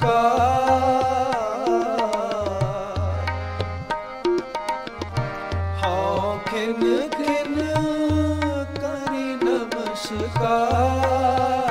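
Sikh devotional kirtan: a singer draws out a long, ornamented vocal line without clear words, over tabla with recurring deep bass-drum strokes.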